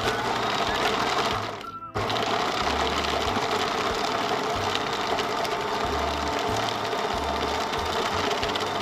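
Electric food processor running, its blade chopping ground fatty pork with ice cubes into a paste. The motor stops briefly a little under two seconds in, then starts again and runs steadily.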